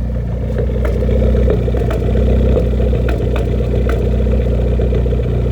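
A Ford Focus ST's 2.0-litre turbocharged four-cylinder running at a steady, uneven idle with irregular ticks, a lumpy sound like an engine with a performance cam. It is misfiring on cylinder 2 (code P0302), which the owner takes most likely for a bad coil pack.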